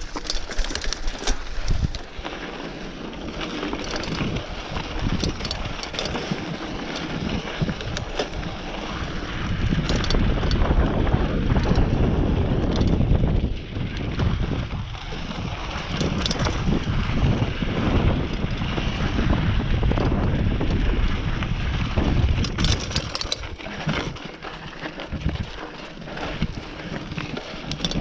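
Mountain bike riding fast down a dry dirt trail: tyres crunching over dirt and rock, the bike rattling and knocking over bumps, and wind buffeting the microphone, heaviest from about ten to twenty seconds in.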